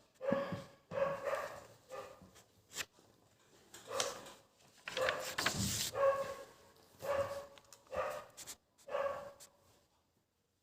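A dog barking repeatedly, about a dozen short barks roughly a second apart.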